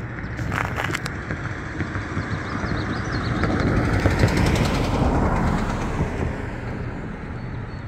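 A road vehicle passing by: its noise builds, peaks about four to five seconds in, then fades, over a steady low rumble. A few sharp clicks sound near the start.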